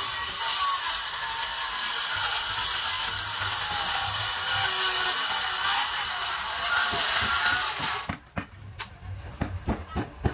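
An electric power tool running steadily on wood, cutting off abruptly about eight seconds in. A quick run of sharp knocks follows, coming faster and faster.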